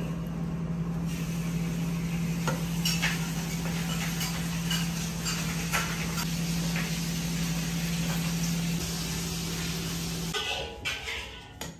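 Metal ladle clinking and scraping against a ceramic serving bowl as fish soup is scooped and poured into a small bowl, with scattered light knocks. A steady low hum and hiss run underneath and cut off about ten seconds in.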